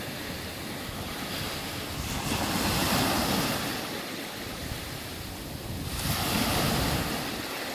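Small sea waves breaking and washing up a gravelly beach, swelling twice about three seconds apart, with wind buffeting the microphone.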